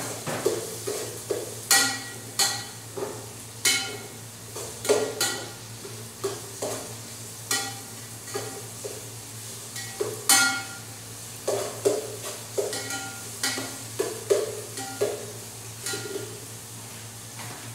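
Metal spoon stirring and scraping in an aluminium pot, knocking the pot's side in irregular sharp, ringing clicks about once or twice a second, as garlic and ginger fry in oil with a faint sizzle underneath.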